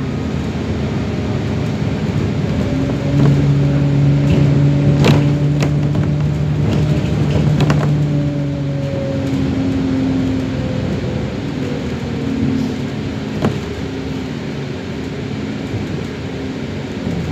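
Alexander Dennis Enviro400 double-decker bus on the move, heard from inside the passenger cabin: engine and drivetrain drone over road noise. The drone holds steady for several seconds, then slowly drops in pitch about halfway through, and there are a few sharp knocks.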